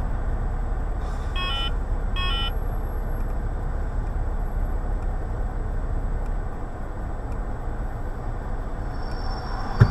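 Steady low rumble of a car's engine and traffic heard from inside the cabin through a dashcam microphone. Two short faint electronic beeps come about one and a half and two and a half seconds in, and a sharp click comes near the end.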